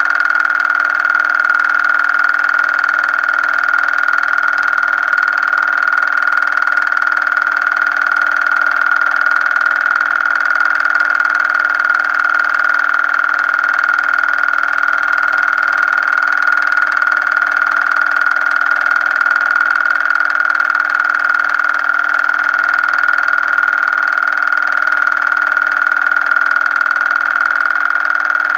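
A steady, loud high whine with a weaker lower hum and a faint, evenly repeating low pulse beneath it, unchanging with no separate events.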